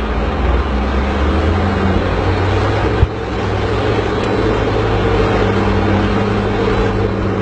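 Diesel engines of heavy earth-moving machines running steadily under load, with one sharp knock about three seconds in.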